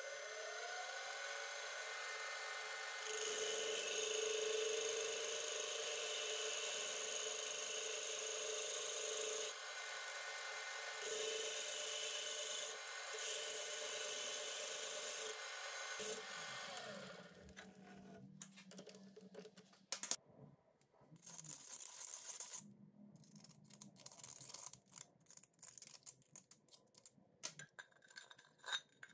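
Benchtop mini lathe spinning up with a rising motor whine and running, its cutting tool scraping through a thin tin paint-can lid with a harsh high hiss that breaks off briefly a few times. It winds down about seventeen seconds in, leaving scattered light clicks and rattles of tin cans being handled.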